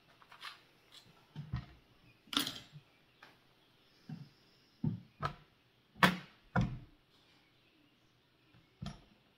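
Irregular clicks and knocks, about ten in all, from small plastic tripod parts being handled and fitted together by hand.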